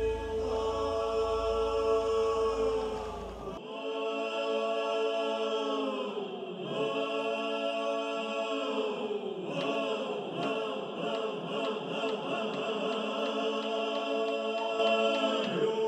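Slow music of sustained choir-like chords, one tone held throughout, swelling and fading every few seconds. A low rumble underneath stops about three and a half seconds in.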